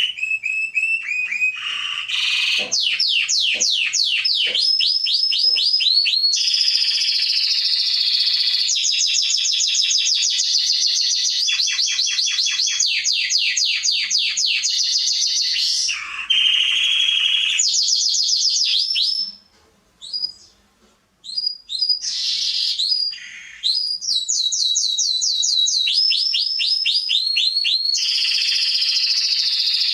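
Domestic canary singing a long, continuous song of rapid trills and repeated rolling phrases, high-pitched, pausing briefly about two-thirds of the way through before starting again.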